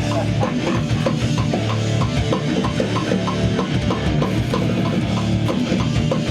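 Loud heavy rock music with a drum kit and guitars at a steady beat: a studio take of a band's song being tracked and played back.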